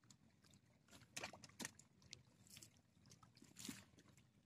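Near silence, with a few faint rustles and light knocks as fishing gear and a bag are handled, over a low, steady background.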